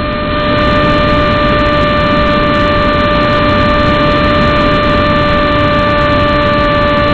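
Electric motor of a Striker RC model plane whining at a steady pitch under constant throttle, over a loud rush of air, heard from a camera mounted on the plane.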